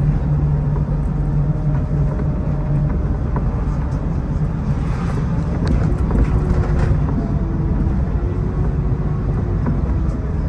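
Cabin noise of a city bus on the move: a steady low engine drone and road rumble, with a low hum that is strongest for the first few seconds and a few light rattles and clicks around the middle.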